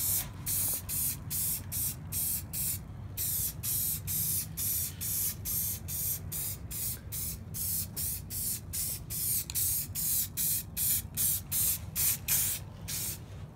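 Spray paint hissing out of its nozzle in quick, even spurts, about three a second, over a low steady hum.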